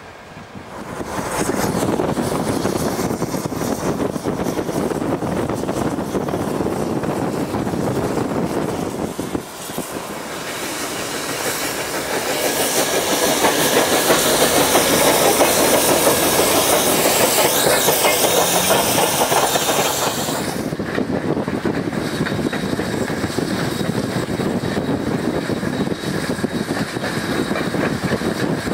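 Ex-Canadian National 2-8-2 Mikado steam locomotive #3254 running with a train, steam hissing and wheels clattering on the rails. It grows louder and hissier in the middle, and the hiss drops back about two-thirds of the way through.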